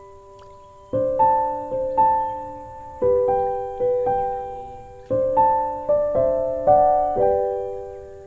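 Background piano music: a slow melody over chords, each struck note ringing and fading, new notes coming about once a second after a held note fades at the start.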